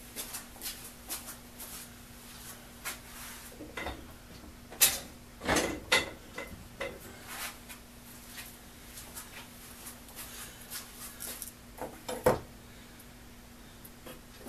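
Hand tools being handled and set down on a wooden workbench: scattered light clicks and clinks with a few sharper knocks, the last about 12 s in as a dead blow hammer is laid on the bench. A faint steady hum runs underneath.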